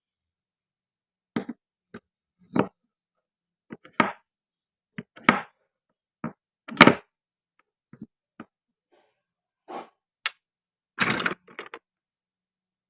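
Plastic and wooden toy fruit and a toy knife being handled and cut: a series of separate short clacks and knocks, irregularly spaced, the loudest about 7 s in and a quick cluster at about 11 s.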